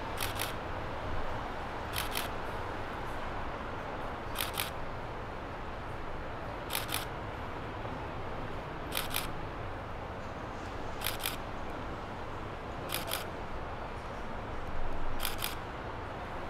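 Camera shutter firing about every two seconds, eight double clicks in all, over a steady background hum.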